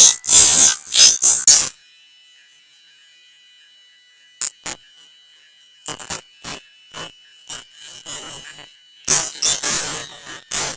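A person voicing a cartoon dog's sneezes in short, noisy bursts. A pause of nearly three seconds follows the first burst of sounds, then the bursts come again, closer together near the end.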